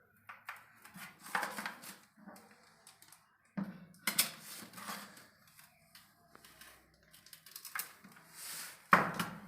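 Irregular clicks, taps and short scrapes of objects being handled during installation work, over a faint low hum, with a louder knock near the end.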